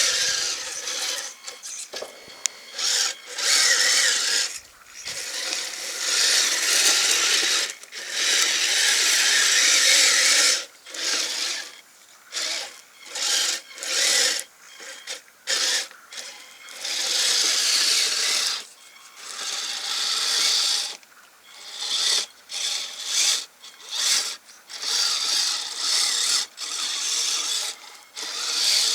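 Kyosho Blizzard FR radio-controlled snowcat's electric drive and tracks running through snow in repeated stop-and-go bursts as the throttle is worked on and off, a high mechanical noise with little bass.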